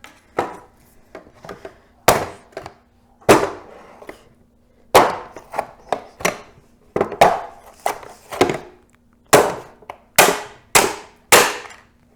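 A small speaker's plastic housing and parts being struck and broken apart: a run of about fifteen sharp knocks and cracks at irregular intervals.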